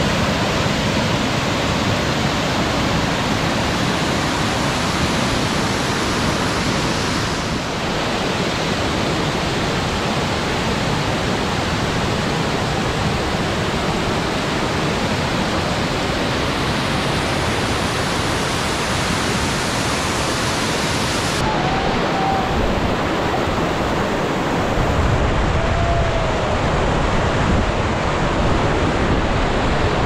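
Steady, loud rush of a waterfall in heavy monsoon flow, its force high after a week of heavy rain. The rushing changes abruptly twice.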